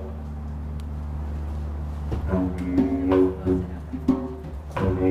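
Didgeridoo playing a steady low drone, joined about two seconds in by higher, shifting tones and djembe hand-drum strikes.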